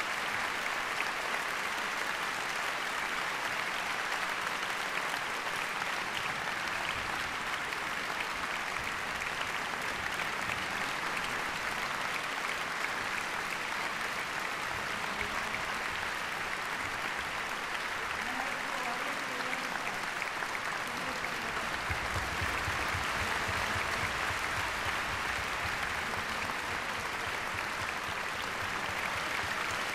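Large concert-hall audience applauding steadily, a sustained ovation after an orchestral performance.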